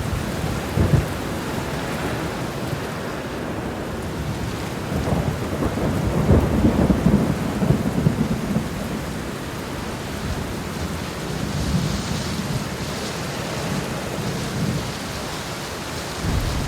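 Heavy rain falling steadily, with a sharp crack of thunder just under a second in and a long roll of thunder building about five seconds in, strongest around seven seconds, then rumbling off.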